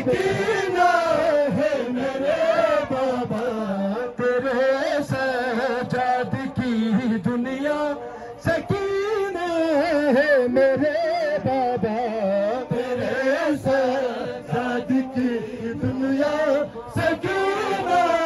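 Male noha reciter singing a Shia mourning lament through a microphone and PA, with a crowd of mourners chanting along. Irregular slaps of hands beating chests (matam) run through the singing.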